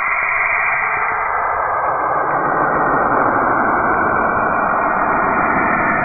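Saturn's radio emissions converted to audio: a dense, steady rushing hiss that fills out into lower pitches over the first two seconds.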